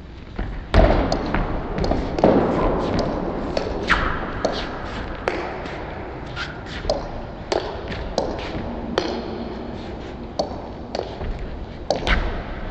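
Table tennis rally against a chopper: a celluloid ball clicks off the rubber bats and bounces on the table every half second to a second, with heavier thumps of the player's footwork on the court floor.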